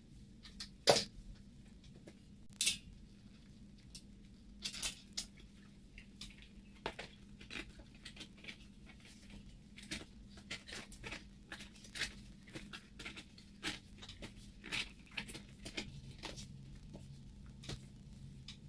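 Hands working a bicycle tyre and inner tube onto a wheel rim: irregular clicks, taps and rustles of rubber and metal, with two sharper snaps about one and three seconds in, over a faint steady hum.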